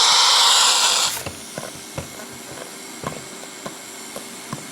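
Radio receiver hiss of static with no station signal, cutting off abruptly about a second in; a few faint clicks follow.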